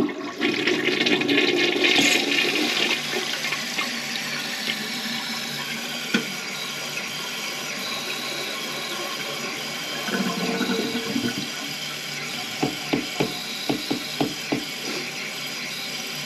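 A toilet with a weak flush being test-flushed: a loud rush of water for the first few seconds, then a steady hiss as the tank refills, with a few light clicks near the end.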